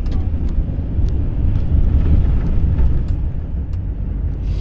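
Steady low rumble of a Volvo truck's engine and road noise, heard from inside the cab while driving.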